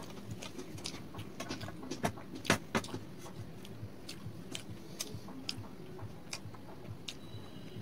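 Close-up eating sounds: wet chewing and mouth clicks as a person eats paratha and potato curry by hand, with fingers tearing bread on a steel plate. A couple of louder clicks come about two and a half seconds in.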